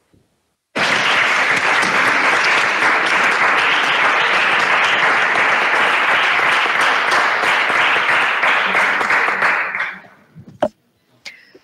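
Applause from many hands clapping. It starts abruptly about a second in, holds steady and fades out near the end.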